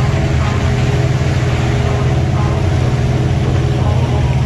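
A boat's engine running steadily at speed, a constant low hum, over the rush of water churned up in its wake.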